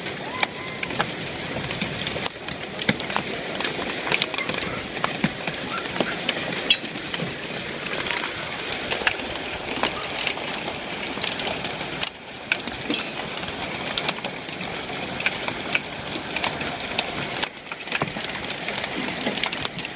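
Hail falling in a heavy downpour: dime- to quarter-sized hailstones clicking and pattering on hard surfaces over a steady hiss of rain.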